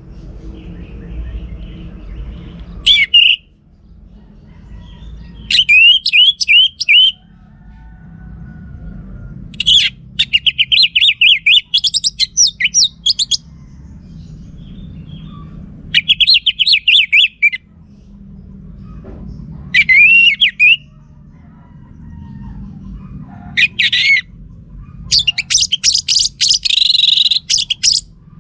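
Orange-headed thrush singing: about seven loud bursts of quick, varied, high notes, each lasting one to three seconds, with short pauses between them. A faint low hum runs underneath.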